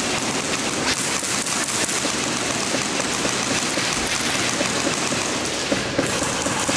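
Airsoft guns firing rapidly, with BBs pattering and rattling against walls: a dense, continuous crackle of fast clicks, with a couple of sharper cracks near the end.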